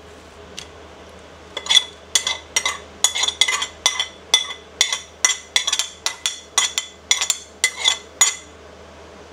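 Metal spoon scraping and tapping against a ceramic plate, a quick run of ringing clinks about three a second that starts a second and a half in, knocking pounded garlic and shallot off the plate.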